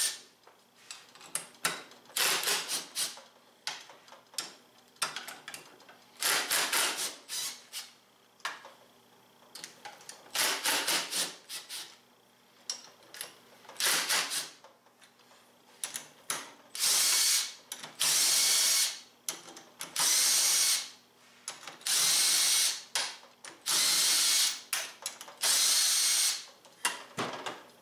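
Cordless impact driver with a 3/8 socket working the bolts of a Polaris RZR XP 1000 primary clutch cover. In the first half it gives short trigger taps, then near the end it makes about six runs of a second each as the bolts spin out.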